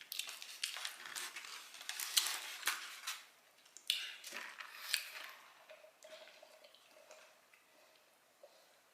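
Close-up eating sounds: a utensil clicking and scraping against the dish, with mouth sounds of chewing. Busiest in the first five seconds, then growing sparse.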